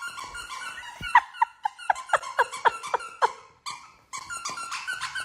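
A quick run of short squeaks, each dropping in pitch, about four a second for a couple of seconds, with softer squeaks before and after.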